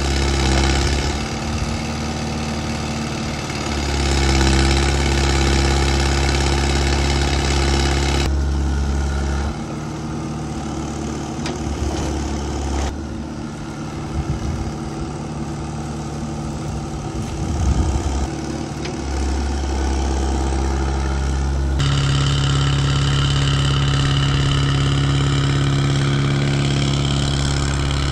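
Kubota excavator's diesel engine running steadily, its sound changing abruptly about 8, 13 and 22 seconds in.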